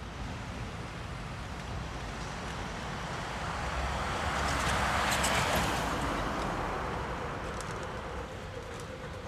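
A car passing by on the road: tyre and engine noise swell to a peak about five seconds in, then fade away.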